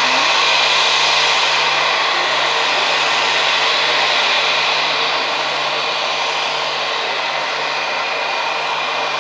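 Jet engines of a taxiing Airbus A320 running at idle: a steady whine over a rushing hiss, easing a little about halfway through.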